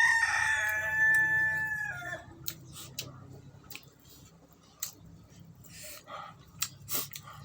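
A rooster crowing once, a long held call of about two seconds that is the loudest sound here. Scattered short clicks and smacks of eating follow.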